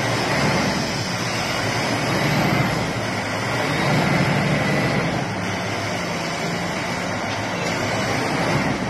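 Diesel engine of a SANY reach stacker running steadily as the machine lowers a tank container onto a rail wagon, with slight swells in loudness.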